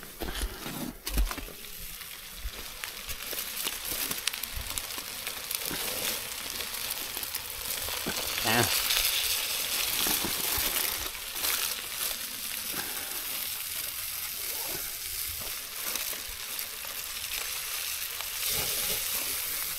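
Foil-wrapped trout sizzling on the grate of a small portable propane grill, a steady crackling hiss, with the foil crinkling now and then as the packets are handled.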